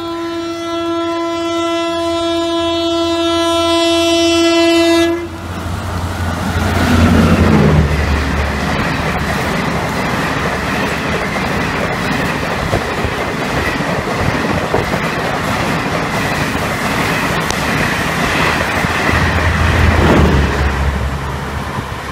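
Yuva Express passing at speed, above 120 km/h. The approaching locomotive sounds one long horn note that stops about five seconds in. Then the locomotive rushes past with a deep rumble, and the coaches follow with a steady rushing roar and wheel clatter. The deep rumble swells again near the end.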